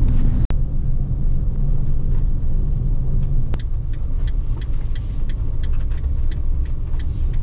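Van driving slowly over snow-packed road, a steady low engine and road rumble heard inside the cab. The sound drops out for an instant about half a second in, and light irregular ticks come through in the second half.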